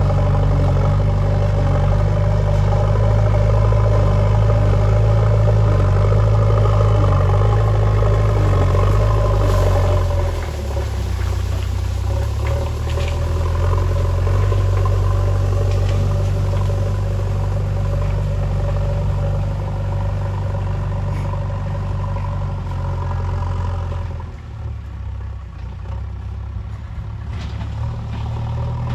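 JCB backhoe loader's diesel engine running steadily while it works. The note is strongest at first, settles lower about ten seconds in, and eases off briefly near the end before picking up again.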